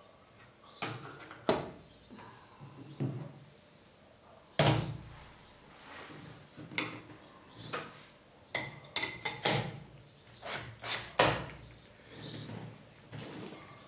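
Sharp clicks and knocks of a Kase Armour filter holder and its adapter ring being handled and fitted onto a camera lens. A loud knock comes about four and a half seconds in, a quick run of clicks around nine seconds, and another loud knock about eleven seconds in.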